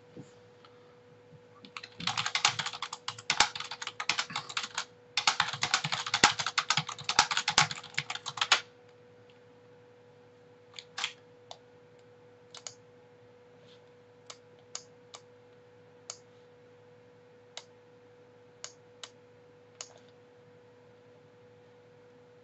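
Typing on a computer keyboard: two quick runs of keystrokes with a short break between them. This is followed by about a dozen separate single clicks, spaced a second or so apart, typical of a computer mouse. A faint steady hum runs underneath.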